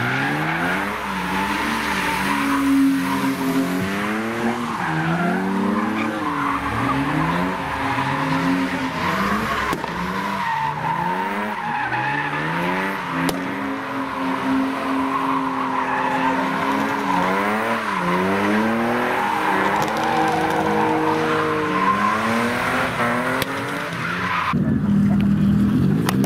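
Cars drifting, their engines revving up and down over and over while the tyres squeal and skid on the pavement. Near the end the tyre noise stops and an engine runs on at a steadier, lower note.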